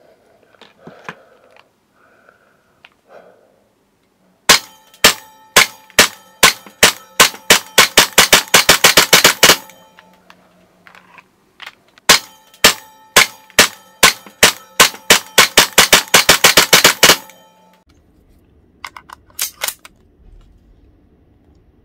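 CZ75-pattern gas blowback airsoft pistols firing two long rapid strings of about twenty shots each, the shots coming faster toward the end of each string. A few more single shots follow near the end.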